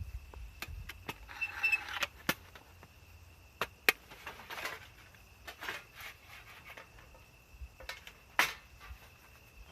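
Scattered clicks and knocks with short rustles, from objects being handled by hand; one sharp click about four seconds in is the loudest. A faint steady high whine sits behind them.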